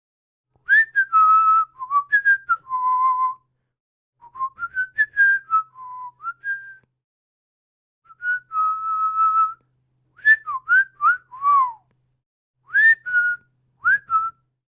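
A man whistling through his lips in several short phrases of quick notes, many sliding upward into the note, with a few longer held notes, and brief pauses between the phrases.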